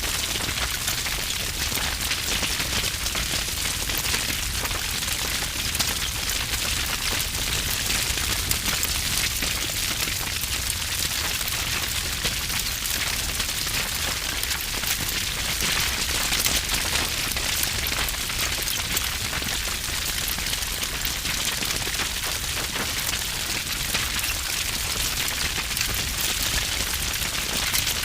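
Wood fire burning with heavy crackling: dense, constant pops and snaps over a low rumble.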